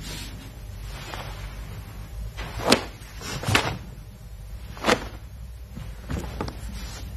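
A karateka performing kata techniques: three sharp snaps in the middle and a softer one near the end, the crack of a karate gi's cloth with quick movements, over a low steady hum.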